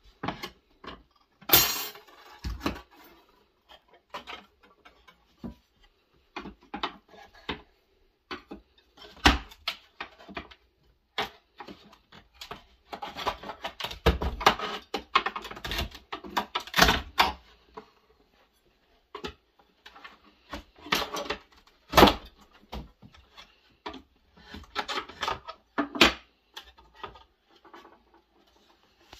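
Steel strapping band on a nailed wooden ammunition crate being cut, then the wooden lid pried off with a hand tool: a long run of sharp clicks, snaps and knocks with wood and metal scraping between them. The loudest snaps come about a second and a half in and again about two-thirds of the way through.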